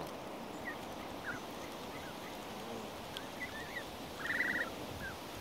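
Canada goose goslings peeping: short, high, whistled notes, scattered and repeated, with a louder rapid trill about four seconds in.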